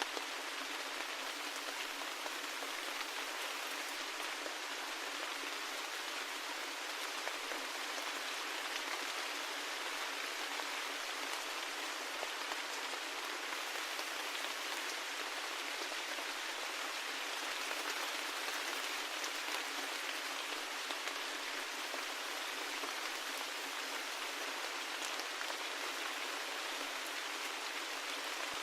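Steady rain, a dense even patter of drops with fine individual ticks throughout and no low rumble.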